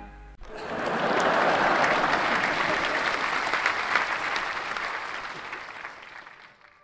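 Audience applause that swells in about a second after the music cuts off, holds, then fades away near the end.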